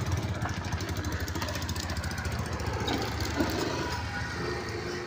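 A motor engine idling steadily with an even, pulsing low rumble.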